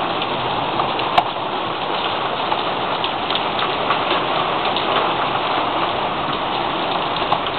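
Steady rain falling on a wooden deck and fence as a hailstorm eases off, with one sharp click about a second in.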